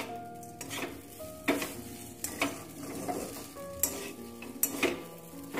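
A metal spatula scrapes and clinks irregularly against a steel kadai while stirring flattened rice (poha) as it fries, with a light sizzle underneath. Soft background music notes play beneath it.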